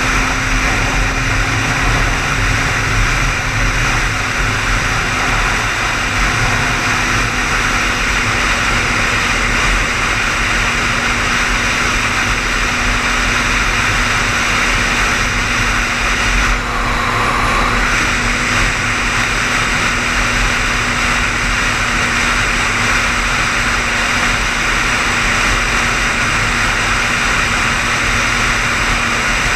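A car driving at highway speed: steady tyre and road noise with a low engine hum, and a brief dip in the sound about halfway through.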